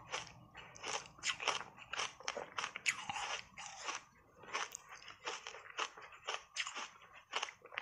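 Refrozen block ice thickly coated in matcha powder being bitten and chewed: a steady, irregular run of sharp crunches, about two or three a second.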